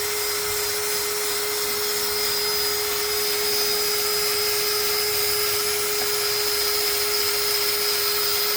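A power tool starts just before and runs at one steady speed, a constant hum with a loud hiss, stripping the adhesive left by old wheel weights off a wheel.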